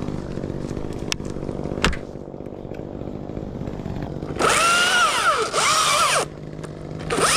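Chainsaw idling, then revved up in two loud bursts, a bit over four seconds in and again near the end, its pitch dipping and recovering within each burst.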